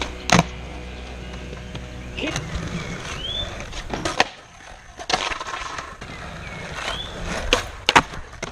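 Skateboard wheels rolling on concrete, with several sharp cracks of the tail popping and the board slapping down as flat-ground flip tricks are tried; a few cracks come close together near the end.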